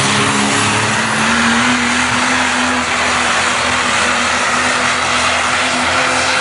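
Super stock diesel Dodge Ram four-wheel-drive pickup pulling a weight-transfer sled at full throttle: its diesel engine runs loud and steady under heavy load, its pitch rising slightly a couple of seconds in.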